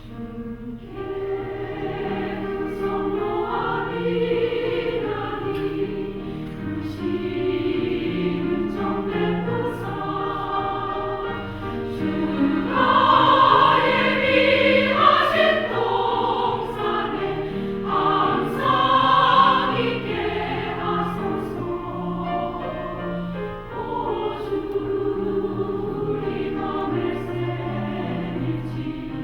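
Women's choir singing a sacred choral song in parts. The voices come in about a second in and swell louder around the middle.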